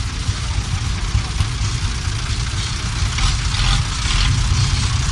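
Vintage tractor engine running, its low steady sound growing louder about four seconds in as a blue Ford tractor drives up close.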